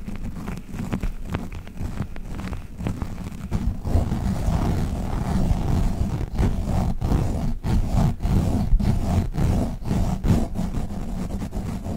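Globbles, sticky squishy toy balls, being squeezed and pulled apart close to a microphone: dense, irregular sticky crackling and squishing that gets louder and busier about four seconds in.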